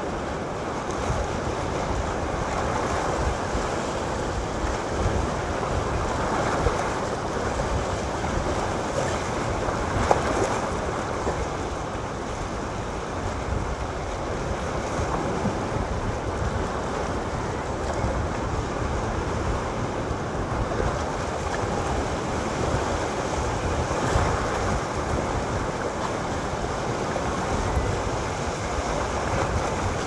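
Sea waves breaking and washing over a rocky shore: a steady, unbroken surf.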